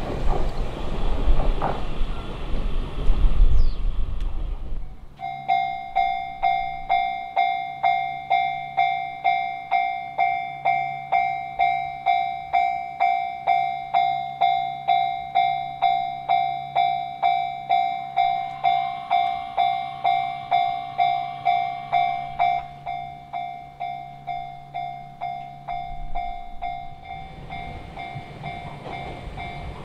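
A train passing over a level crossing, wheels clacking on the rails. About five seconds in this gives way to a Japanese level-crossing alarm, an electronic bell striking about twice a second, which becomes quieter near the end.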